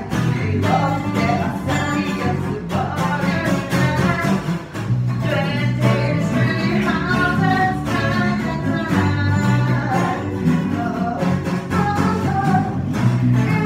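Acoustic guitar strummed with an electric bass line underneath and a voice singing the melody over them: a small band playing a song.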